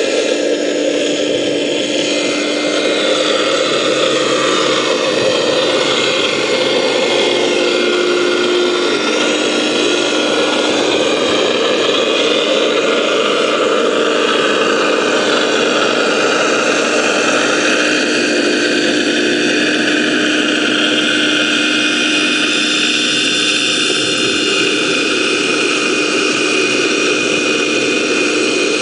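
Vortex Tornado 4-inch venturi dredge running, heard underwater: a loud, steady engine-and-pump drone with a constant hum and a hiss of rushing water.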